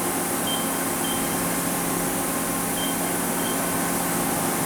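Mori Seiki ZT-1500Y CNC turning center running with a steady hum and high hiss while its turret is jogged in manual mode. Short high beeps come in pairs, about half a second in and again near the three-second mark.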